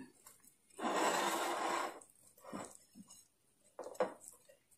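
Handling noise from hands rolling a soft popiah wrap on a plate: one rustling scrape lasting about a second, then a few faint light taps.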